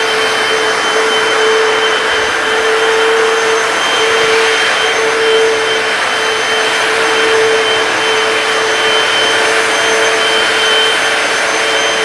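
Hoover PowerDash hard floor cleaner running steadily as it scrubs and suctions a tiled floor: an even rush of suction with a steady motor whine.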